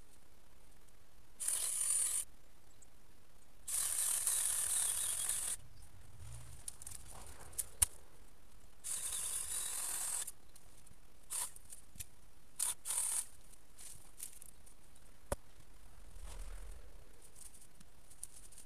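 Saw cutting through coppiced hazel stems in short bouts of strokes, five or so runs of a second or two each with pauses between. A couple of sharp cracks or knocks come in the gaps.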